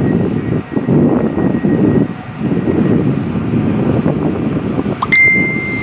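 Wind gusting on the microphone, and about five seconds in a high horn blast from the approaching electric train: a quick rise, then a steady note.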